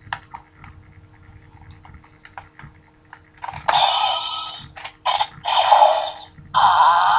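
Plastic clicks as a Ranger Key is handled and fitted into a Gokaiger Mobirates toy morpher phone. About three and a half seconds in, the toy's small speaker plays loud electronic sound effects and voice calls in four short blasts.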